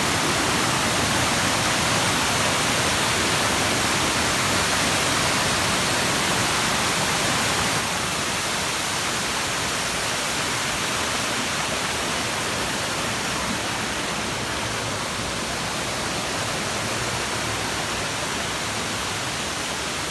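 Steady rushing water from a waterfall, an even loud hiss that eases slightly about eight seconds in.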